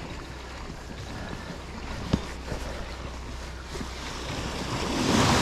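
Sea water washing against the pier, with wind rumbling on the microphone; a louder rush of a wave builds near the end. A single sharp knock about two seconds in.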